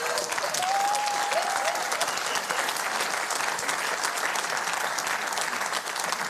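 Studio audience applauding steadily, with some laughter in the first two seconds.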